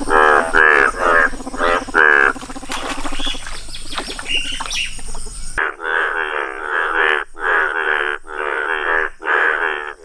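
Male Indian bullfrogs (Hoplobatrachus tigerinus) giving their mating calls: a steady run of short, pitched croaks, about two a second. About halfway through, the background hiss drops away suddenly while the croaking continues.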